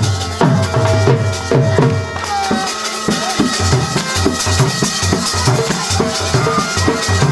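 Dhol drumming for wedding dancing: a fast, steady beat of about three strikes a second, with a rattling, shaker-like percussion over it.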